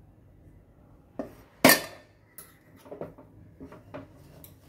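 Stainless-steel kitchenware clinking as rice flour is tipped with a spoon from a steel plate into a steel pot of sugar syrup: one sharp metal clank about a second and a half in, the loudest sound, then a string of lighter knocks and scrapes as the flour goes in and stirring begins.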